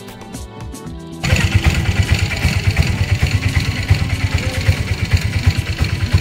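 Background music for about a second, then a sudden cut to a small vehicle engine running with a rapid, even low putter and road noise, heard from the passenger seat of an open-sided vehicle.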